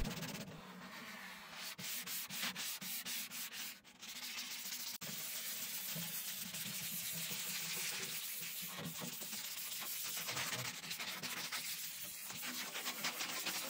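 A 220-grit sanding sponge rubbed by hand over the steel lid of a Traeger pellet grill in back-and-forth strokes, scuffing off rust and old finish before high-heat paint. The rubbing breaks off briefly about four seconds in, then runs on steadily.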